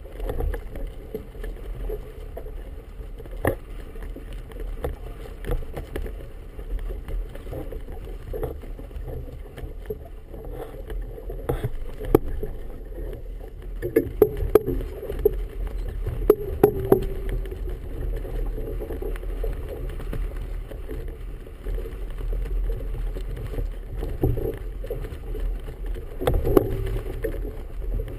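Steady low rumble of wind and choppy water around a committee boat's hull, with a cluster of sharp knocks about halfway through.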